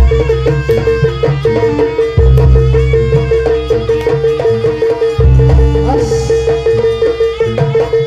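Loud live Javanese traditional ensemble music accompanying a Tari Buto (jaranan buto) dance, played through loudspeakers: drums and percussion with melodic lines over a steady held tone, and a deep stroke about every three seconds.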